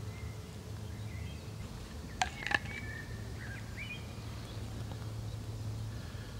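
Small birds giving short chirps over a steady low background rumble, with two sharp snaps a little over two seconds in.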